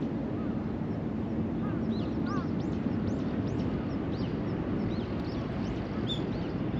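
Steady low rush of wind and water, with many short, high chirps from several small birds calling throughout.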